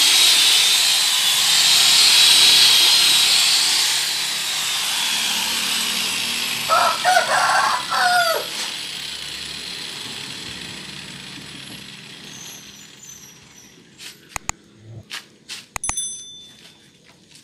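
Rotary car polisher spinning at speed with its buffing pad on the door paint, a high whirring hiss that winds down and fades over the next several seconds. A rooster crows once about seven seconds in. Near the end come a few sharp clicks and a short high ding.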